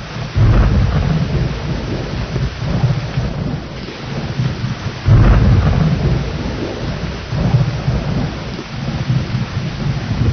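Steady rain with rolling thunder: a deep rumble breaks in about half a second in and another about five seconds in, each rolling on and slowly fading under the rain.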